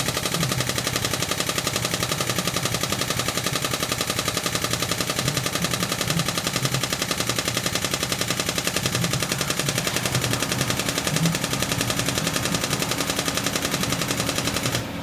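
Powered hydraulic pump driving a hydraulic ram that is pressing out a rusted cylinder pin, chattering in a fast, even train of sharp pulses, roughly fifteen a second. It cuts off suddenly near the end.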